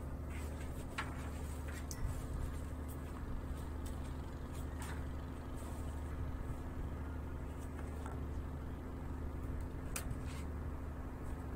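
A ship's engine running steadily, a low even drone with a constant hum, with a few faint clicks now and then.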